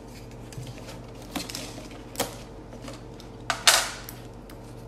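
Clear sticky tape pulled off a roll and torn, with paper crackling as it is taped around a plastic bottle: a few sharp crackles, the loudest a little before the end, over a faint steady hum.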